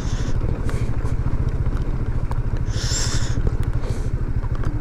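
Motorcycle engine running at a steady cruising speed, its exhaust pulsing evenly, under wind and road noise; a short hiss about three seconds in.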